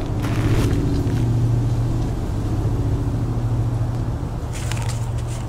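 A low, steady droning hum with a few overtones above it, swelling up just after the start and holding until near the end, with brief hissing swishes near the start and again near the end.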